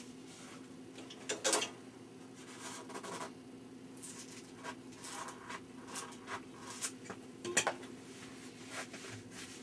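Scattered clicks, light clanks and rubbing as hands work on pipe fittings and hardware inside an equipment cabinet, with two sharper knocks about a second and a half in and again about two seconds before the end. A steady low hum runs underneath.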